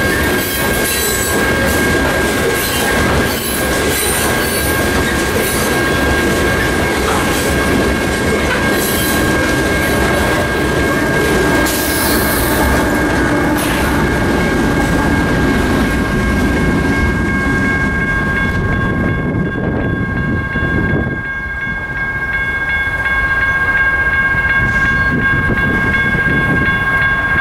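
Loaded coal hopper cars rolling past with wheel clatter, then the rear pusher diesel-electric locomotives, a CSX GE AC4400CW and ES40DC, pass with their engines running. The low rumble thins out after the locomotives have gone by, while a steady high ringing tone carries on throughout.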